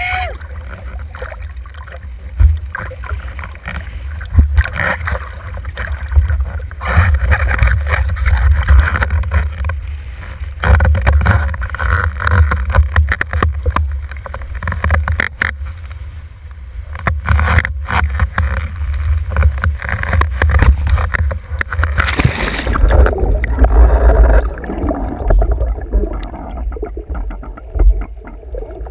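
Windsurfing rig on the water: wind buffeting the microphone and water rushing and slapping around the board and sail. About 22 seconds in there is a loud splash as the rig goes into the water, after which the sound turns muffled and gurgling underwater.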